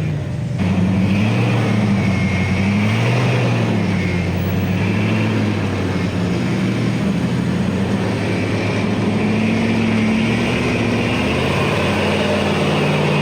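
Off-road rig's engine revving up and down under load while rock crawling up a ledge climb. The pitch rises and falls again and again with the throttle.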